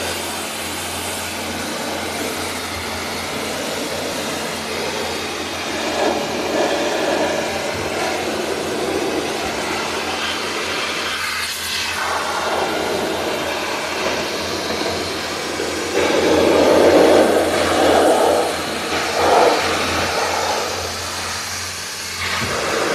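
A 250-bar high-pressure water jet from a handheld lance blasting against a loader's steel wheel rim: a continuous hissing spray over a steady low hum, swelling louder at times as the jet moves across the metal.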